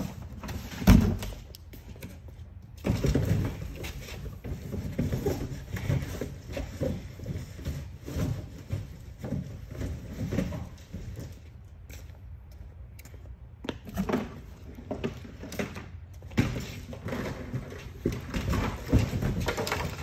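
Cardboard boxes being handled and stuffed by hand into the chamber of a vertical baler: irregular thumps and rustling of cardboard, with a sharp knock about a second in and a short lull past the middle.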